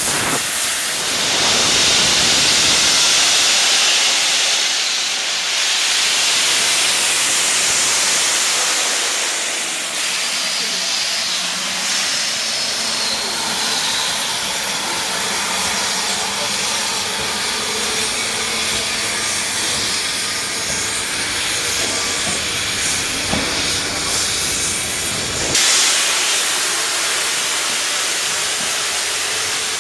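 Merchant Navy Class steam locomotive Clan Line standing and blowing off steam: a loud, steady hiss for the first ten seconds or so, easing off, then starting again suddenly about 25 seconds in.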